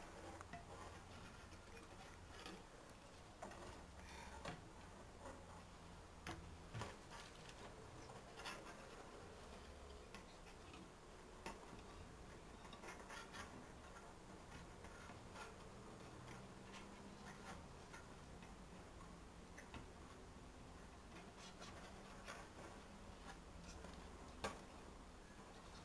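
Faint, irregular clicks and ticks of thin wire being bent and twisted around a wire frame, with one sharper click near the end.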